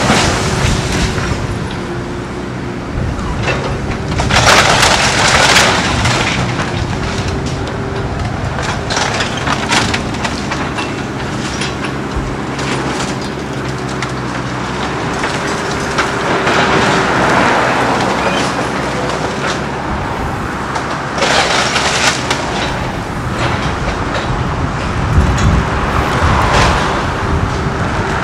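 Heavy diesel machinery running steadily during the demolition of a wood-frame house, with loud cracking and crashing of wooden debris about four seconds in and again twice near the end.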